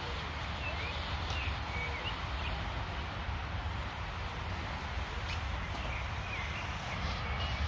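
Steady rain falling on a garden, a constant hiss, with small birds chirping briefly now and then over a low steady rumble.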